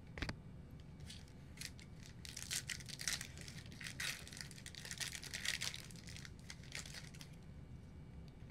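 Football trading cards and card packs being handled: scattered rustling and crinkling, busiest in the middle.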